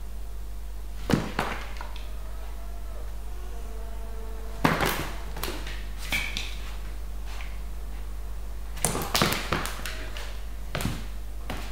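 Two cats play-fighting on a tile floor: quick paw slaps, claws skittering and bodies thumping on the tiles, in short scuffles about a second in, around five seconds in, and again around nine to eleven seconds in. A steady low hum runs underneath.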